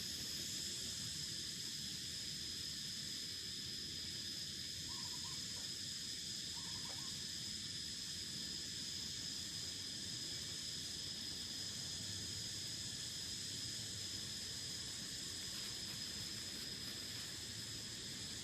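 A steady, high-pitched insect drone over a faint hiss, with two short, faint calls about five and seven seconds in.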